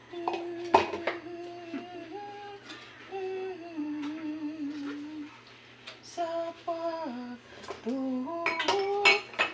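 A woman singing a slow Cebuano hymn unaccompanied, holding long notes that step up and down. Dishes and cutlery clink sharply about a second in and again in a cluster near the end.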